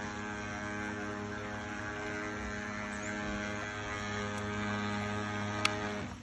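Small electric motor of an amphibious RC model truck running at a steady pitch, a hum with many overtones, then cutting off near the end, just after a sharp click.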